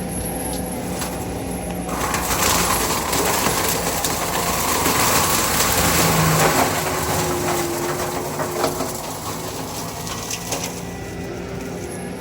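John Deere 333G compact track loader running a forestry mulcher head: the diesel engine runs steadily, and from about two seconds in the mulcher drum grinds into wood with a dense crushing noise. Sharp cracks come near the end, and the noise eases off in the last couple of seconds.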